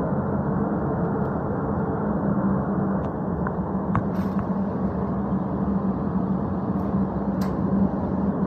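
Steady hum and rush of a paint spray booth's ventilation, with a few faint clicks.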